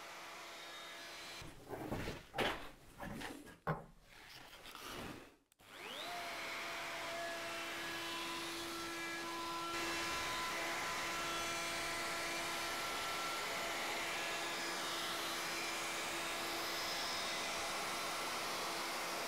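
Makita trim router starting about six seconds in, its motor spinning up with a rising whine and then running steadily, a little louder from about ten seconds in. Before it starts there are a few seconds of knocking and clatter from handling.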